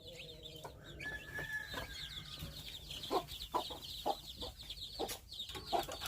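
A brood of chicks peeping constantly in high, rapid, falling chirps, with a mother hen giving short low clucks here and there.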